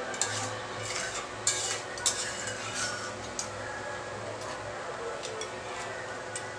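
A steel spatula stirring a watery crab curry in a metal kadai, scraping and clinking against the pan at irregular intervals.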